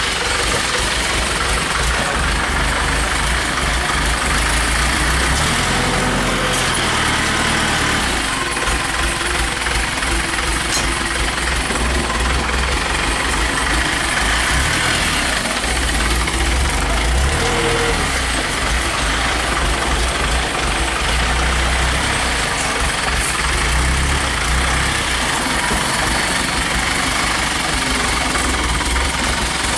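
Diesel engine of a Foton light dump truck idling steadily, heard up close.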